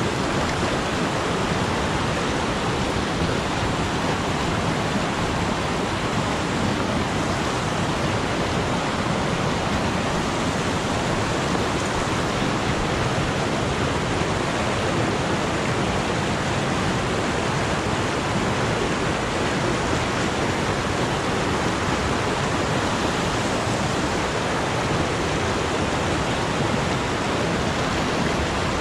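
Fast mountain creek rushing over rocks and boulders in whitewater rapids: a steady, even rush of water.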